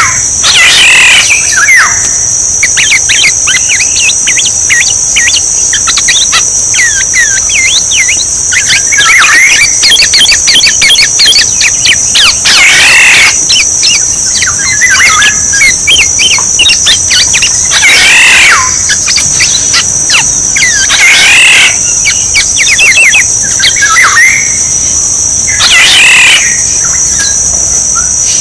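Oriole calls, loud and repeated every four to five seconds, with quick short chirps in between and a steady high insect drone underneath.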